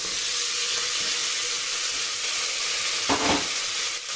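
Fried onions and freshly added chopped tomatoes sizzling in hot oil in an aluminium pressure cooker, a steady frying hiss. A short, louder scrape of the metal spatula against the pot comes about three seconds in, as stirring starts.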